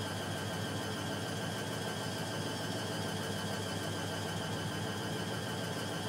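Hoover Electron 1100 De Luxe front-loading washing machine running steadily during a suds-locked spin: a constant motor hum with a steady high whine over it.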